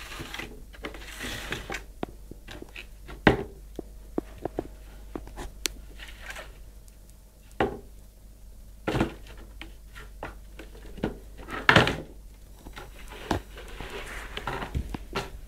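Cardboard boxes being knocked, pushed and scraped by a playing cat on a wooden floor: irregular hollow knocks and taps mixed with short rustling scrapes, the loudest knocks about three seconds in and again near twelve seconds.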